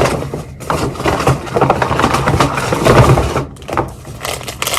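Crinkling and rustling of a goodie bag and product packaging as items are pulled out and handled, in irregular crackles that ease off about three and a half seconds in.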